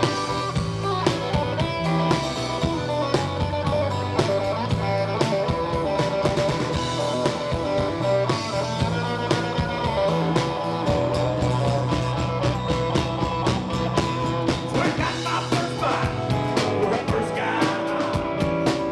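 Live country-rock band playing an instrumental passage: electric guitar over steady bass and a drum kit beat, with no singing.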